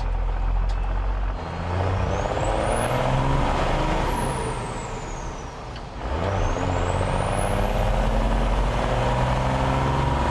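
Cummins turbo-diesel engine pulling hard twice. Each time a high turbo whistle climbs steeply, holds and falls away, over the engine's drone rising in pitch. There is a short dip between the two pulls about six seconds in.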